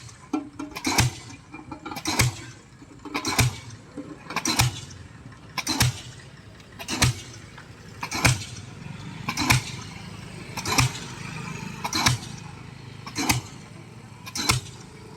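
Pile driver's hammer striking a ground pile at a steady pace, about one heavy blow every 1.2 seconds, twelve blows in all, with a machine engine running between them.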